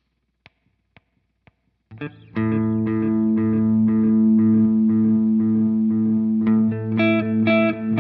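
Electric guitar played through an analog bucket-brigade delay pedal, an Ibanez EM-5 Echo Machine clone: four faint ticks half a second apart, then about two seconds in a chord rings out and sustains. Near the end new notes are picked over it.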